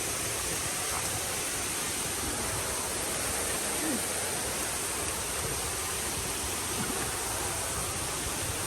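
Rushing water: a steady, even rush that holds one level throughout.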